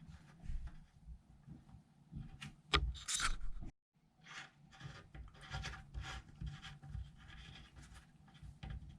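The screw nut of a two-handle Delta faucet being turned down onto the faucet body by hand: irregular light scraping and clicking, with a louder clatter about three seconds in.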